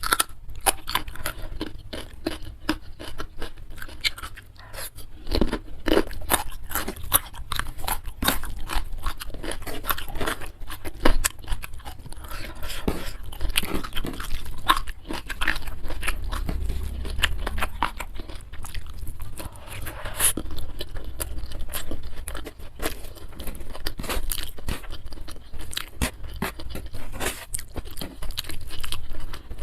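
Close-miked eating: a person chewing and crunching food in the mouth, a dense run of crisp crackles and wet mouth clicks that goes on unbroken.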